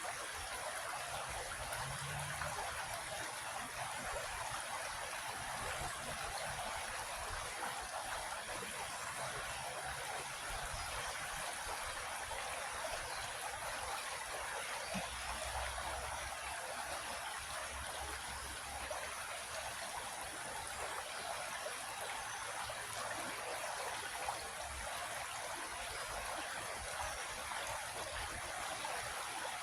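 Creek water flowing and trickling over rocks in a steady, even rush.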